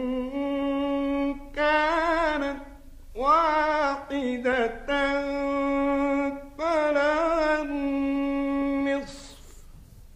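A male Quran reciter chanting in the melodic tajweed style, with long held notes and wavering ornaments over about five phrases. The voice stops about nine seconds in.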